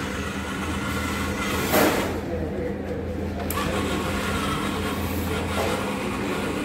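Small 12 V DC gear motors of a model car running steadily with a low hum as it drives itself out of its parking spot. A brief louder clatter comes about two seconds in.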